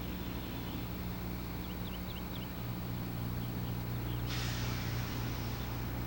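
Tour bus engine idling with a steady low hum; about four seconds in, a hiss starts and runs for nearly two seconds. Faint high chirps sound on and off.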